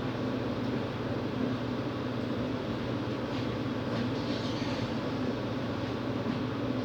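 A steady machine hum: a continuous low drone with an even haze of noise above it, unchanging throughout.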